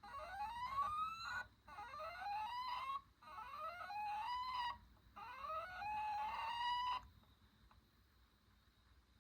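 Fan motor failing to start, making a repeated rising whine: four climbing whines of about a second and a half each, each cut off by a short break as the motor gives up and tries again. The whine stops about seven seconds in.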